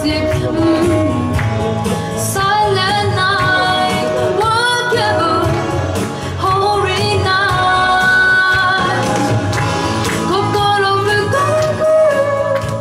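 A young girl singing solo into a handheld microphone over instrumental accompaniment, her voice gliding between sustained notes.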